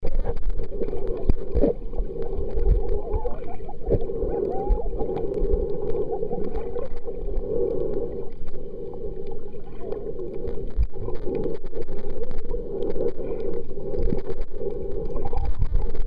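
Underwater noise picked up by a camera in a waterproof housing: a steady muffled rushing with scattered clicks and knocks, and a few short wavering tones about three to five seconds in.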